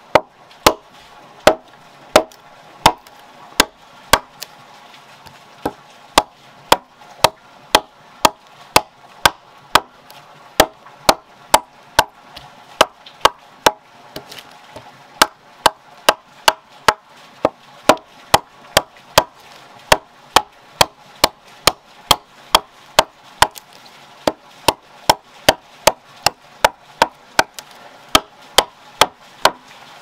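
A broad-bladed chopper hacking a notch into a round wooden log: sharp, steady blows about two a second, with a couple of short pauses, chips splitting off the wood.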